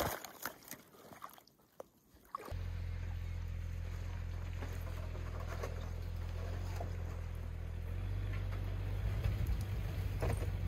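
Rubber boots splashing and sloshing through shallow water at the icy edge of a lake. About two and a half seconds in, this is cut off by a steady low drone that carries on and gets a little louder near the end.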